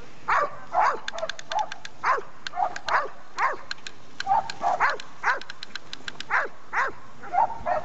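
A dog barking in high yelps, about two a second, each yelp dropping in pitch, with a few short pauses in the string. Sharp little clicks sound between the yelps.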